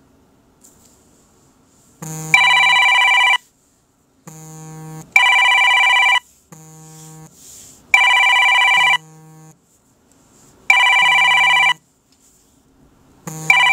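Electronic telephone ringtone ringing five times, about every three seconds: each ring is a soft low buzz followed by a loud, high multi-tone ring lasting about a second.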